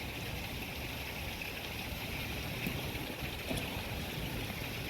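Wind rumbling on the microphone outdoors, a steady low buffeting with a constant hiss above it and a couple of faint ticks.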